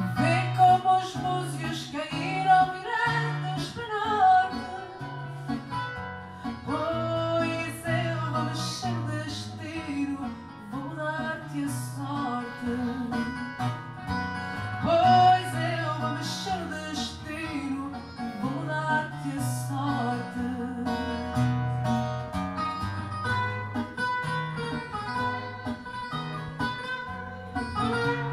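A woman singing fado into a microphone, accompanied by a plucked acoustic guitar.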